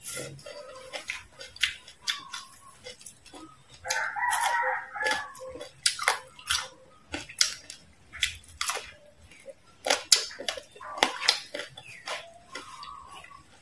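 Close-miked eating of crispy fried frog: sharp crunches and chewing clicks spread through. About four seconds in, a drawn-out animal call lasting about a second stands out above the eating.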